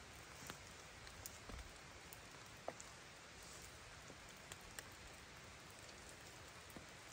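Faint steady rain with scattered single drops ticking on a surface, one sharper drop about three seconds in.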